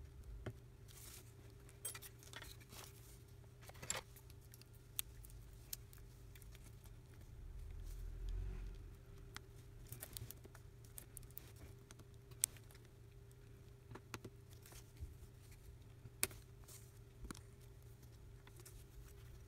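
Faint, scattered clicks and light taps of fingers handling and pressing a disassembled smartphone's parts and flex cable, over a steady low hum; one sharper click stands out about midway.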